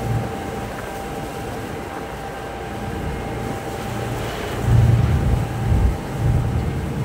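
Steady drone of a passenger ferry underway, with a faint steady hum running through it. From about two-thirds of the way in, low gusts of wind buffet the microphone.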